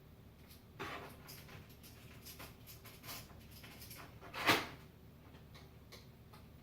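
Scattered light clicks and knocks from handling a computer case fan and its mounting screws, the loudest about four and a half seconds in, over a faint steady hum.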